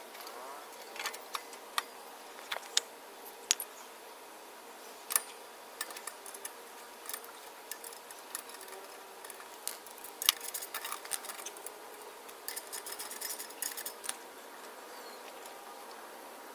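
Light, scattered metallic clicks and clinks as motorcycle slip-on muffler hardware is handled during fitting, with a couple of seconds of quick jingling toward the end.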